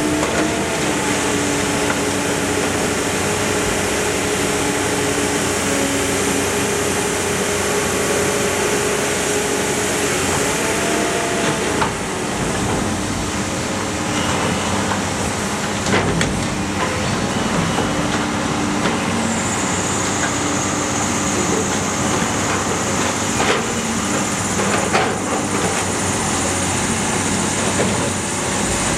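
Iron Pack car baler running: a steady machine drone with a hydraulic whine that shifts in pitch partway through, a few sharp metal clanks, and a high hiss that comes in about two-thirds of the way through.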